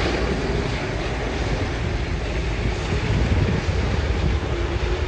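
Jet engines of a Boeing 777-200ER, Rolls-Royce Trent 892s, making a steady roar with a heavy low rumble as the airliner rolls out down the runway after touchdown.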